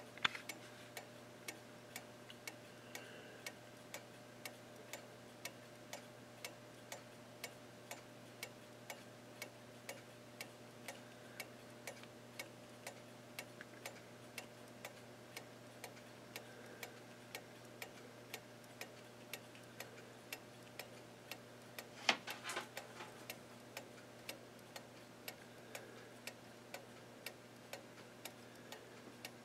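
Seth Thomas 41 AE clock movement's strip-pallet escapement ticking steadily, about two ticks a second, after cleaning and a new mainspring, with the strip pallet slightly opened so it no longer jams. A brief louder clatter comes about two-thirds of the way through.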